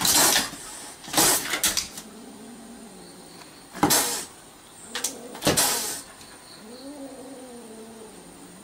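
Kitten hissing and spitting in four sharp bursts, then a low wavering yowl near the end: a defensive threat at a dog.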